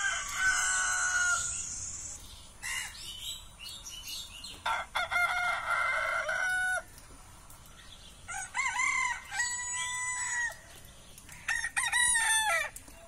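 Roosters crowing, about four long crows a couple of seconds apart: a recorded rooster crow played from a phone's speaker and the live pet rooster crowing back in answer.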